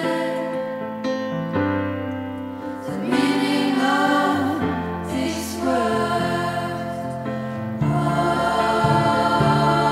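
School choir of teenagers singing a slow choral arrangement, accompanied by piano and bowed cello holding low notes that change every second or two. The sound grows fuller about eight seconds in.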